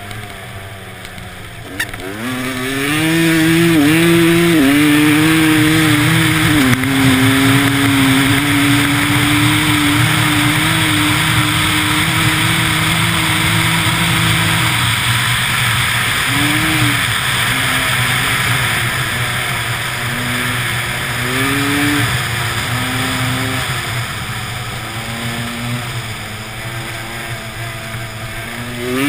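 Dirt bike engine running hard at speed. It picks up about two seconds in and holds high, steady revs, then in the second half the revs drop and rise again in short throttle blips.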